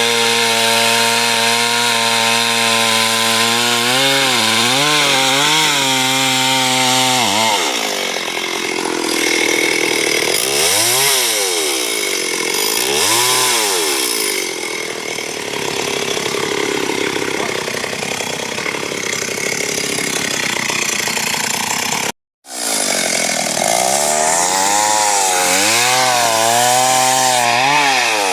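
Chainsaw engine running at high revs while cutting a big tree. Its pitch wavers, twice rises and falls in the middle, and the sound cuts out for a split second about two-thirds of the way through.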